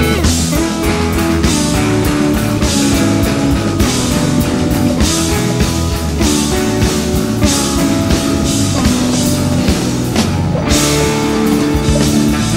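Rock music with guitar and a drum kit.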